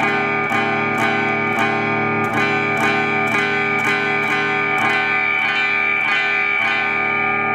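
Electric guitar on the bridge pickup played through a Tube Screamer TS-9-style overdrive pedal into a tube amp's clean channel, lightly overdriven: a chord strummed over and over, about twice a second. The pedal's tone control is being turned, and the treble thins near the end.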